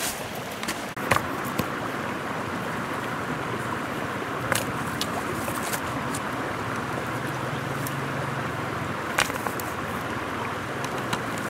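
Steady rush of a shallow river flowing over rocks, with a few sharp clacks of river stones knocking together as they are picked up and set down, about three times.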